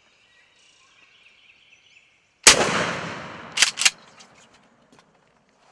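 A single shotgun shot at a wild turkey, fired from inside a ground blind about two and a half seconds in, its report ringing away for about a second. Two sharp clicks follow quickly.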